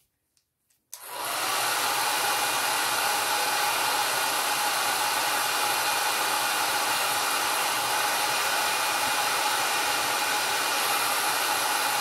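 Hair dryer switching on about a second in and then blowing steadily, with a faint steady whine over the rush of air, drying wet watercolor paint.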